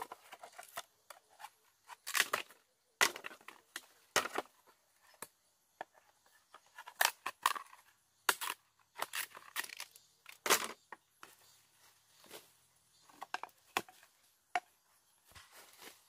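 Irregular sharp snaps and tearing sounds, singly and in quick clusters of two or three, as material is cut or broken by hand.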